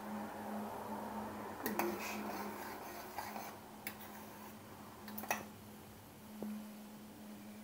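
A metal spoon stirring thick apricot jam in an enamel pot, clinking sharply against the pot's side several times, the loudest about two seconds in and again near the five-second mark. A steady low hum runs underneath.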